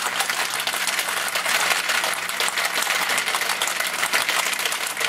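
Ice cubes rattling hard inside a metal cobbler cocktail shaker being shaken, a dense, steady clatter.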